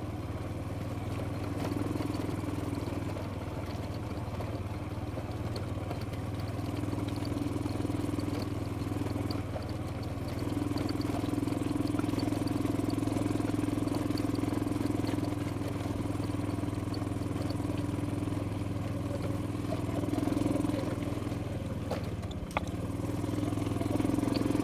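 Motor scooter's small engine running steadily as it rides over a rough stony track, the note swelling and easing a little with the throttle. A brief knock comes near the end.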